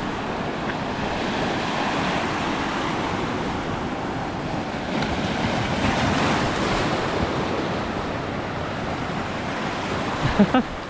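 Ocean surf washing onto the beach at high tide: a steady rush of breaking waves that swells a little about halfway through.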